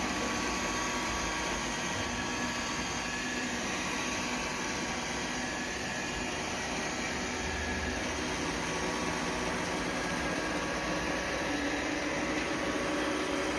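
iRobot Roomba 675 robot vacuum running as it drives around searching for its charging dock: a steady mechanical hum with a few faint held tones.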